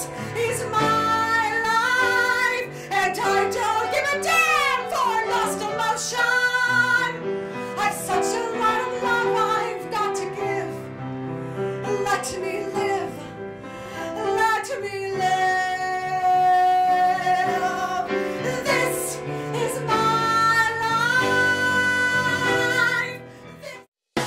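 A woman singing a ballad into a microphone with instrumental accompaniment, holding long notes with vibrato. The music fades and cuts off just before the end.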